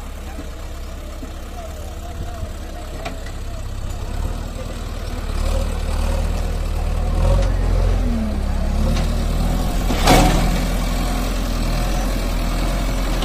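JCB backhoe loader's diesel engine running steadily, growing louder about halfway through as the machine moves over the dirt. A single sharp clank about ten seconds in is the loudest sound.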